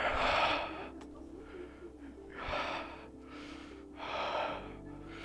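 A person taking three deep, heavy breaths about a second and a half apart, the first the loudest, while standing barefoot on a bed of nails.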